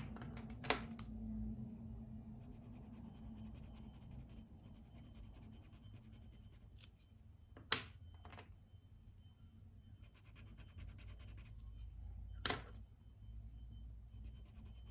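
Felt-tip markers being handled on a desk: a handful of sharp clicks and taps, the loudest just under eight seconds in, over a faint low hum.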